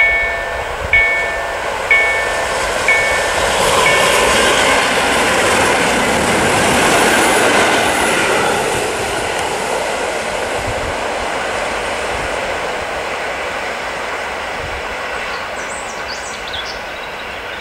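EN57 electric multiple unit running past close by, its wheels and motors loudest about six to eight seconds in and then slowly fading as it draws away. Over the first four seconds a level-crossing warning bell dings about once a second, then stops.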